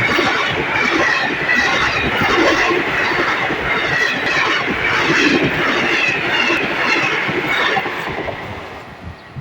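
Express passenger train passing at speed, its wheels clattering in a steady rhythm over the rail joints. The noise dies away near the end.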